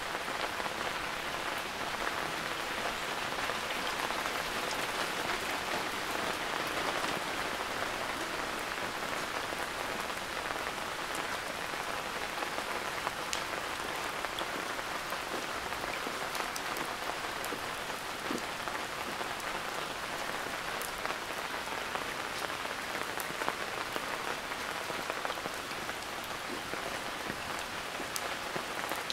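Steady rainfall, with scattered sharp ticks of single drops landing close by.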